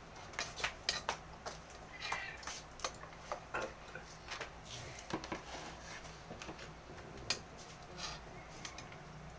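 Someone eating: a run of irregular soft clicks and smacks, several a second.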